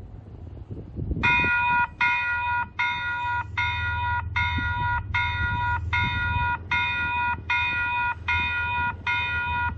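Railway level-crossing warning bell starting up about a second in, then ringing in a steady series of about one and a half strikes a second. It is set off by an approaching train.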